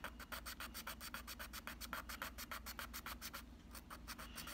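A thumbnail being filed on coarse sandpaper: quick back-and-forth rasping strokes, about nine a second, pausing briefly about three and a half seconds in. This is the coarse-grit shaping of a classical guitarist's nail.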